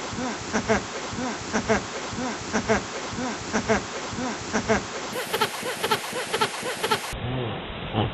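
A dog choking, giving short pitched hacking calls in pairs, about one pair a second.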